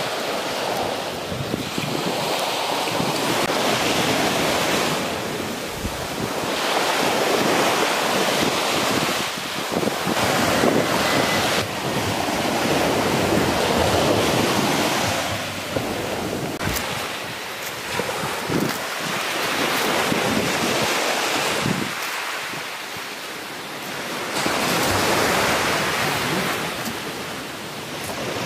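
Surf washing onto a sandy beach, a wide hiss that swells and fades every few seconds as waves come in, with wind buffeting the microphone.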